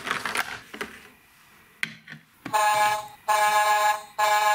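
A plastic Rubble pup figure rattling down a toy play-set's curved plastic slide, then the Sound Vehicle Rubble Power Bulldozer toy's electronic sound effect: an alarm-like buzzing tone repeated three times, each burst just under a second long.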